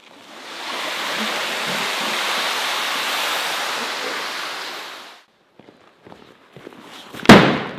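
A deflated PVC inflatable boat dragged across a concrete floor: a steady rushing scrape that lasts about five seconds and fades out. Near the end comes a single loud thump.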